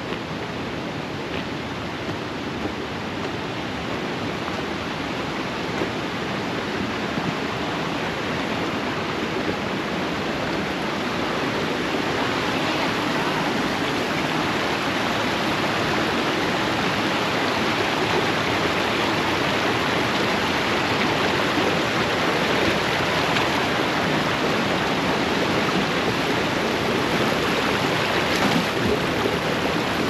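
Rushing water of a rocky brook, a steady hiss that grows gradually louder.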